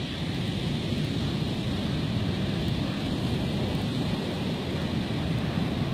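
Rough surf breaking steadily on the shore, mixed with wind buffeting the microphone.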